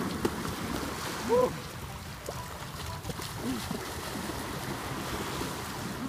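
People wading and splashing out into cold sea water, with steady rushing and sloshing of water. A short shout comes about a second in.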